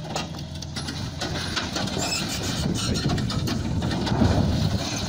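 The raised dump box of a tipper semi-trailer toppling over sideways: a truck engine running under a growing rumble and clatter of metal and dirt as the box rolls and lands, loudest about four seconds in.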